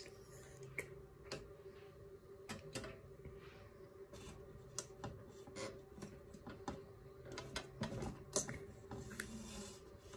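Faint scattered clicks and taps from handling a glass-chimney oil lamp as it is being lit, over a steady low hum.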